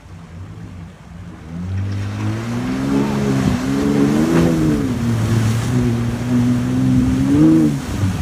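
Off-road 4x4's engine revving hard, starting about a second and a half in and growing louder, its pitch rising and falling several times.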